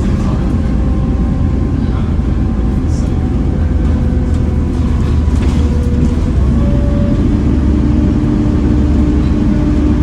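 Volvo B7TL double-decker bus running along, heard from on board: the six-cylinder diesel drones low under several steady whining tones, and a stronger whine comes in about seven seconds in.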